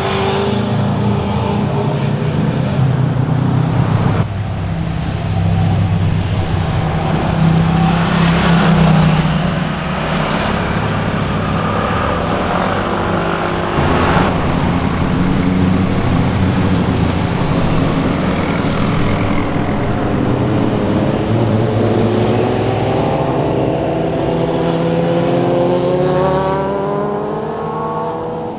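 Sport motorcycle engines and exhausts as the bikes pass one after another through tight bends, revving up and down as the riders roll off and accelerate, with abrupt changes in the engine note as one pass gives way to the next. Near the end a group of sport bikes approaches, their engine notes rising together.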